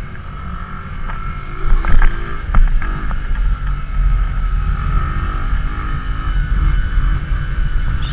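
Bajaj Boxer CT 100's small single-cylinder four-stroke engine running on the move, its pitch rising and falling briefly about two seconds in. Heavy wind rumble on the microphone throughout, with a few sharp knocks about two to three seconds in.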